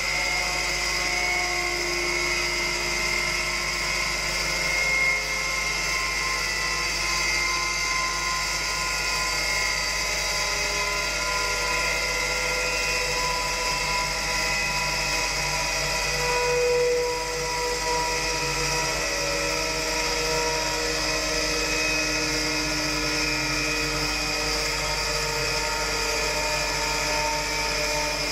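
Tubular centrifuge running at speed: a steady high-pitched machine whine over a low hum.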